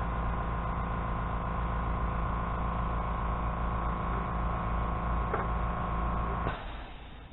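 A steady motor hum with a whining tone cuts off about six and a half seconds in, with a faint click shortly before.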